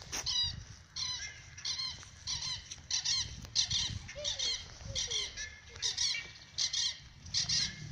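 Birds calling over and over: short, high, chirping calls repeating about one and a half times a second, with a few lower falling notes between them.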